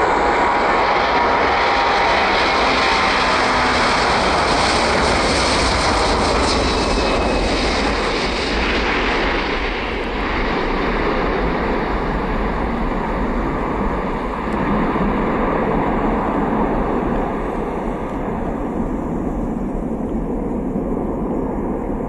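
Airbus A330-200F's Rolls-Royce Trent 700 turbofans at takeoff power: a loud, steady jet roar through the takeoff roll, liftoff and climb-out. After about nine or ten seconds the higher hiss fades and a lower rumble remains as the aircraft climbs away.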